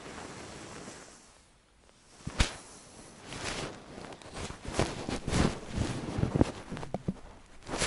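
Handling noise from the hand-held recorder brushing and scraping against a fleece blanket and puppy fur. A soft hiss of rubbing gives way to a sharp knock about two and a half seconds in, then a run of rustling, rubbing and small bumps that ends in another sharp knock.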